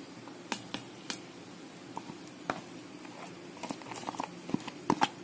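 Irregular clicks and light knocks of a clear mixing bowl against a steel vessel as cake batter is poured and scraped out by hand, with a small cluster of quicker clicks about four seconds in.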